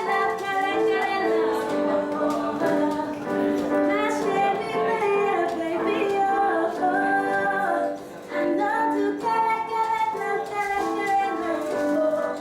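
Background music: a song with a woman singing a melody over instrumental accompaniment.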